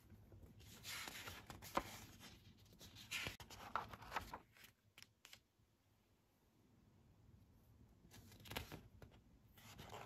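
Pages of a spiral-bound sketchbook being turned by hand: faint paper rustles and swishes in three spells, about a second in, around three to four seconds in, and near the end, with a few light clicks.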